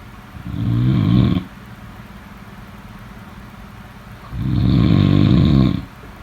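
Two low snores, a shorter one about half a second in and a longer one starting about four seconds in, with a quiet pause between them.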